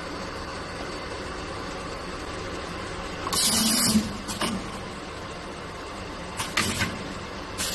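NZ3260 paper-box rim-curling machine working a cup, with a steady hum underneath. About three seconds in, its pneumatic cylinder fires with a loud hiss of air lasting under a second, followed by a couple of clicks. Shorter hisses come about two seconds later and again near the end.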